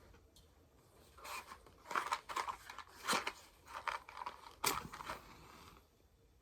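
Tobacco pipe being lit: a run of short scratchy, crackling noises starting about a second in and stopping shortly before the end, the sharpest scrape about four and a half seconds in.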